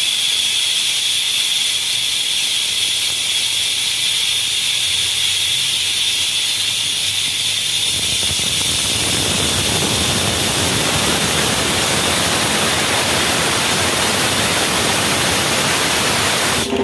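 Compressed air hissing steadily out of an Elgi air compressor's receiver tank as it is vented. The tank pressure is falling toward the pressure switch's restart point. About halfway through the hiss grows fuller and rougher.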